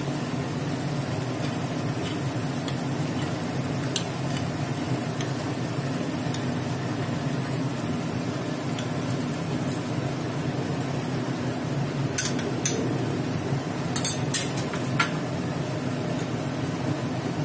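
Fish curry sizzling steadily in a non-stick kadai, with a few sharp knocks of utensils against the pan in the second half.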